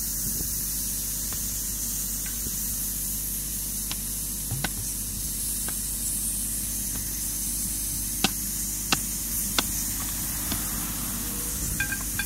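Steady hiss of compressed air from the air line feeding a pneumatic soil-piercing mole, over a low steady hum. A few sharp clicks of a spade striking the soil come about four seconds in and again near eight to ten seconds.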